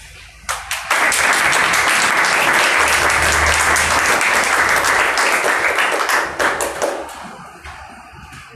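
Audience applauding. It starts with a couple of single claps, swells into full applause about a second in, and dies away over the last couple of seconds.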